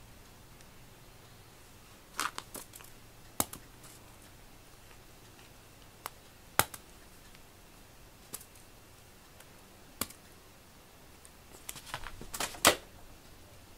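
A cat playing with a small ball toy on a foam floor mat: scattered sharp clicks and taps from the toy and the cat's movements, a few seconds apart, then a quick cluster of louder taps near the end as the cat leaps.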